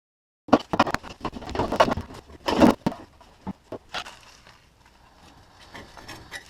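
Metal parts clanking and scraping as the Jeep body is worked on: a run of irregular knocks and scrapes that starts suddenly about half a second in, is loudest about two and a half seconds in, and grows quieter near the end.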